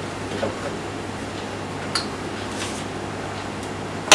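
Faint knocks and clicks of a motorcycle helmet being handled out of its wrapping, over a steady low hum, with one sharp click near the end.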